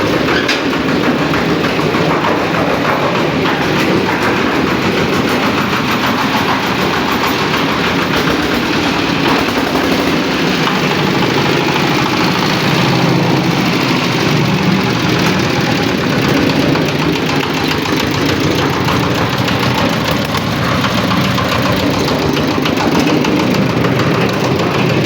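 Dongfeng R180 single-cylinder diesel engine running steadily under test, driving a 500-litre concrete mixer, with a rapid, even knocking beat.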